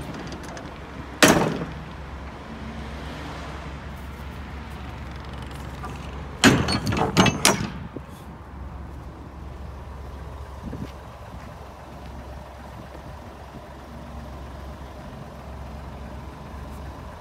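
Hino truck's diesel engine idling as a steady low rumble, with one sharp knock about a second in and a quick run of loud knocks around six to seven and a half seconds in.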